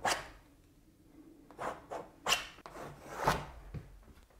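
A mark-making tool rubbed across a stretched canvas in about five short strokes, laying in a vertical mark on the painting.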